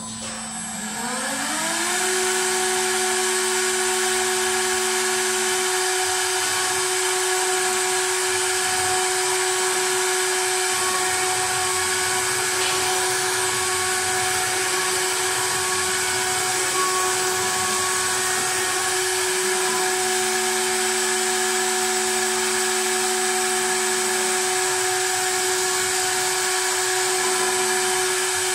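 CNC wood carving lathe's motor spinning up with a rising whine over the first two seconds, then running at a steady high whine. A hiss of the cutter carving a spiral groove into a wooden baluster runs under it.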